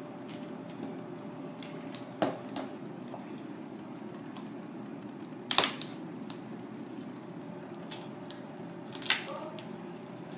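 A knife cutting and cracking through a cooked crab's shell on a plastic cutting board: three sharp cracks, about two seconds in, halfway through and near the end, with fainter clicks between, over a steady low hum.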